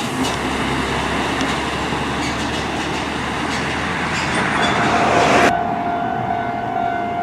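Heavy double-trailer truck passing close, with diesel engine rumble, road noise and scattered clacks. About five and a half seconds in, the noise cuts off abruptly, leaving a steady high tone.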